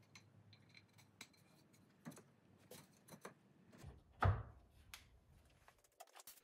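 Light clicks and knocks of cherry bed parts being handled and fitted together on a workbench, with one louder wooden thump about four seconds in.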